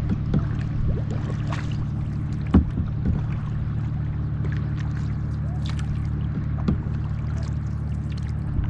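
Water lapping and splashing against a canoe's hull, with scattered small knocks and one sharper knock about two and a half seconds in, over a steady low machine hum.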